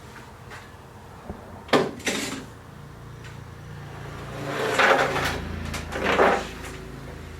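Knocks and clatter of hard objects being handled: two sharp knocks about two seconds in, then two longer, louder scraping bursts near the middle and end.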